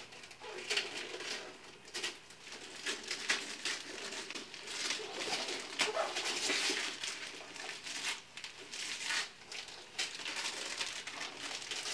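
Christmas gift-wrapping paper being torn and crumpled as presents are unwrapped: irregular crackling rustles, some louder than others.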